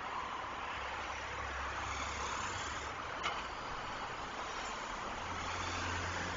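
Steady road traffic on a city highway: tyre hiss with the low drone of passing vehicle engines, heavier in the first half and again near the end. A short sharp click sounds about three seconds in.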